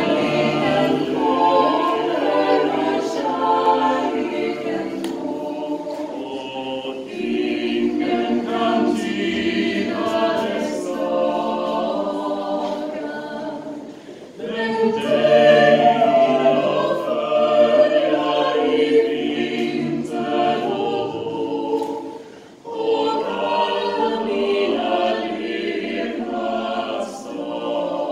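Six-voice mixed a cappella vocal group, three men and three women, singing a Swedish song in close harmony, with short breaks between phrases about 14 and 22 seconds in.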